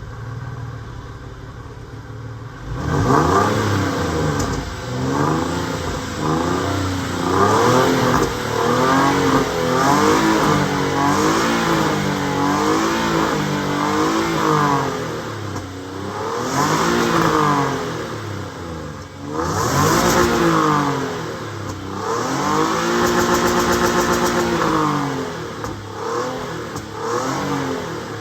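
Stock exhaust of a 2012 Jaguar XF's naturally aspirated 3.0-litre V6 (238 hp), idling, then revved again and again from about three seconds in, the pitch rising and falling with each rev. Later on there is one longer rev held steady before it drops back.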